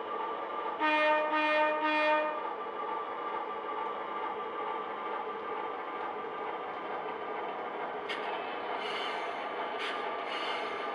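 HO scale model diesel locomotive's sound decoder: three short horn toots about a second in, over the steady running sound of the diesel engine. A few short hissing strokes near the end.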